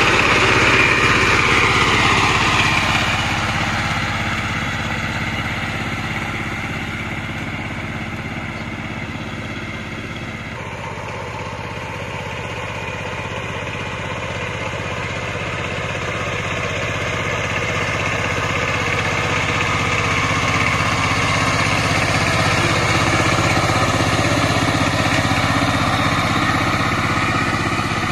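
Two-wheel power tiller's single-cylinder diesel engine running steadily while it churns through a flooded field. The sound grows quieter through the first half as the machine is farther off, changes abruptly about ten seconds in, and grows louder again later on.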